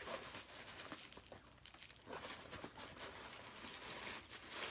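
Faint, irregular rustling and crinkling of tissue paper being handled while a gift box is unpacked.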